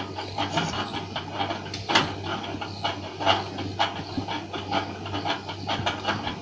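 Soldering on a phone's SIM connector: short, irregular clicks and crackles, several a second, over a steady low hum.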